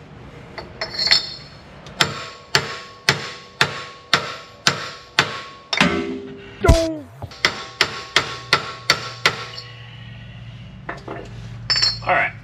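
A hammer driving a heated, interference-fit speed-sensor gear onto a transmission output shaft: about fifteen blows at roughly two a second, starting a couple of seconds in and stopping about three quarters of the way through, each with a short metallic ring.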